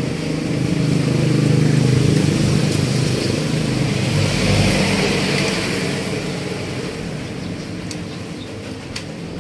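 A motor vehicle's engine running, swelling up over the first second or two and then slowly fading away. A few light metallic clicks come near the end.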